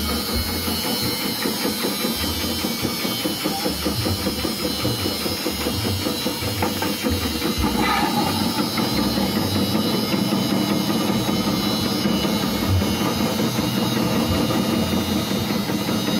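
Electric chip-slicing machine with a 180-watt motor running, its spinning blade cutting root pieces fed down the chute into slices with a rapid, steady chopping over a motor hum.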